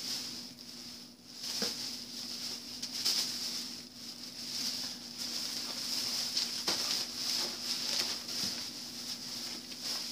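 Plastic shopping sacks and store items rustling and knocking as they are rummaged through, with scattered sharp clicks and a steady low hum underneath.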